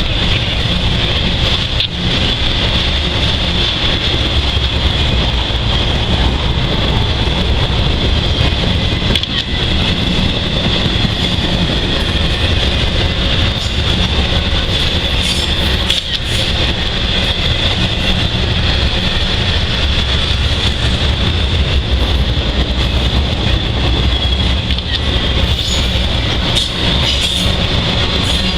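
Norfolk Southern intermodal freight train rolling past, a steady loud rumble and clatter of its cars on the rails.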